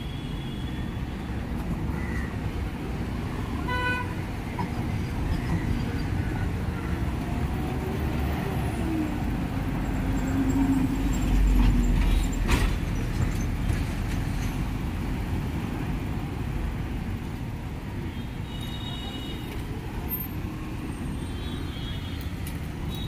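City street traffic: a steady rumble of vehicles, with a short horn toot about four seconds in and a louder vehicle passing near the middle. Short high-pitched tones sound a few times near the end.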